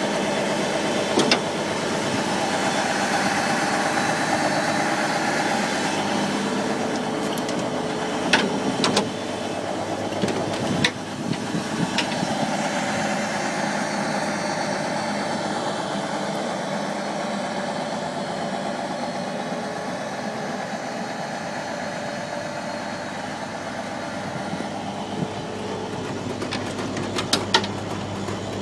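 Engine of a 1989 E-One Hurricane fire pumper running steadily, with a few sharp clicks: several about eight to eleven seconds in and a cluster near the end.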